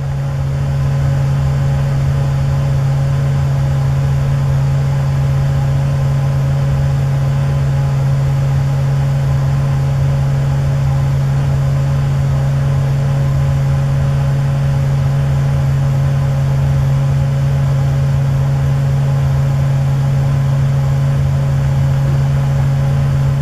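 Loud, steady, low hum of a running machine, holding one unchanging pitch.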